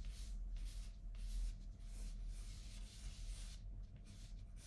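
Graphite pencil sketching light strokes on watercolour paper: a run of short, soft scratches, about two a second, with a brief pause near the end.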